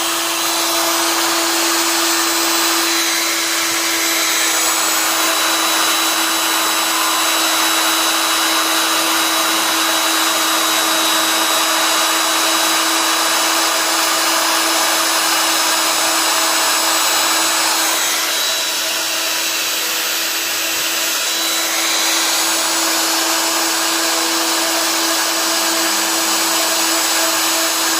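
CNC machine running steadily, a constant whine over a loud hiss, slightly quieter for a few seconds past the middle.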